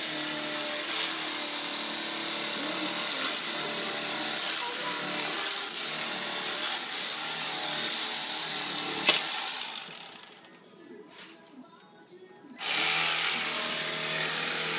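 Corded electric fillet knife running with a steady buzz as its blades saw through a tautog fillet. A sharp click comes about nine seconds in, the motor stops for a couple of seconds, then starts again near the end.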